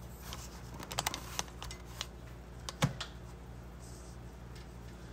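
Light plastic and metal clicks of a model car frame and parts being handled on a workbench: a quick cluster of small clicks about a second in and one sharper knock a little before three seconds, over a faint steady low hum.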